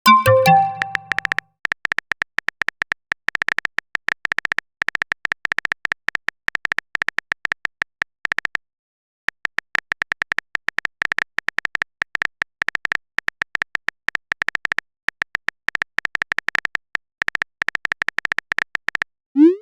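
Simulated phone chat sound effects: a short message-notification chime, then rapid, continuous phone-keyboard tapping clicks, with a brief pause about halfway through. Near the end there is a short rising pop, like a message being sent.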